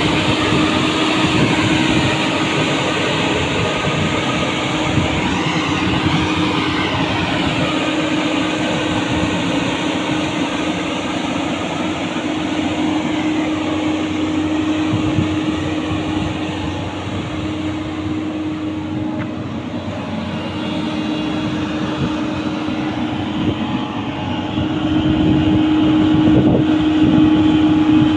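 JCB NXT 215LC crawler excavator running and working: a steady diesel drone with a constant hum, hydraulics and steel tracks grinding as the machine moves, growing louder near the end.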